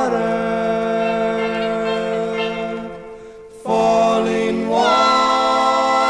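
Doo-wop song: a vocal group sings long held harmony chords that step to new chords, with a brief break about three seconds in before the voices come back in.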